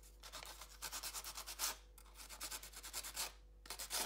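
Sandpaper rubbed in quick back-and-forth strokes along the edge of a paper label, roughing it up so it looks aged. The strokes pause briefly twice.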